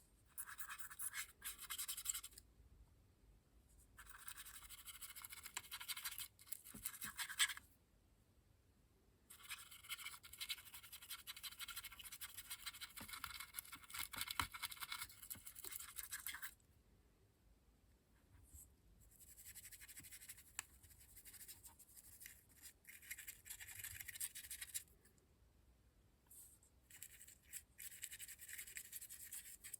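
Stiff brush scrubbing weathering powder onto a model locomotive's plastic bodywork: scratchy brushing in bursts of a few seconds, with short pauses between strokes.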